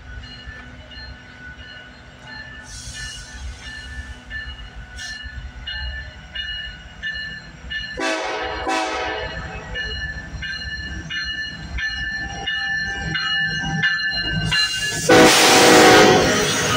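Canadian National diesel-hauled freight train passing close by: a low rumble of the locomotives with high, steady wheel-squeal tones that come and go. About eight seconds in, as the locomotives go by, there is a burst of falling-pitch tones, and near the end a loud rush of noise as the autorack cars pass.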